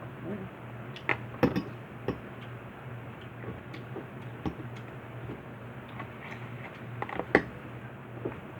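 Scattered light clicks and taps of tableware while eating, at irregular moments, the sharpest one near the end, over a steady low hum.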